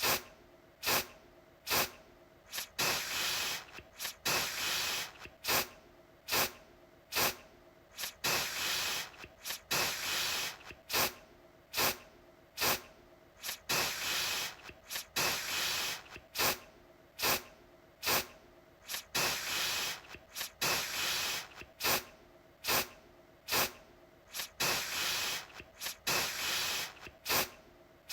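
Aerosol deodorant can spraying over and over: short hissing puffs, roughly one a second, mixed with longer sprays lasting about a second.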